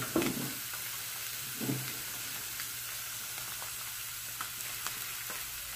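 Fish fillets frying in a lightly oiled electric skillet, a steady sizzle. A few soft knocks come through it, the clearest about a quarter second and just under two seconds in.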